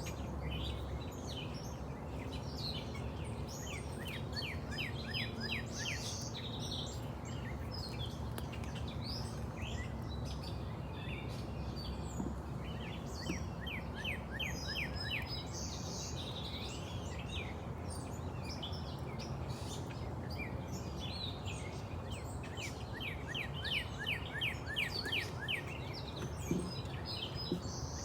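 Wild birds singing outdoors, a repeated phrase of quick, high chirping notes returning about every ten seconds, with scattered single chirps over a steady low background rumble.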